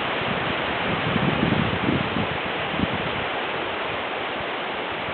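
Strong wind blowing through trees and hedges, a steady rushing of leaves, with low gusty rumbles in the first three seconds that ease off after.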